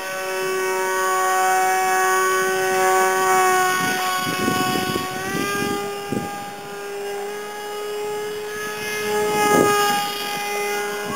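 Homemade foam delta-wing RC plane's propeller motor whining steadily in flight, its pitch stepping up slightly about halfway through.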